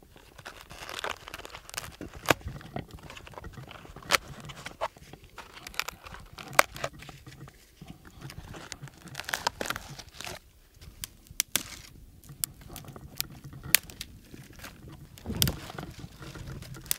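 Footsteps crunching through snow, with sharp cracks of twigs and dry branches snapping every second or two.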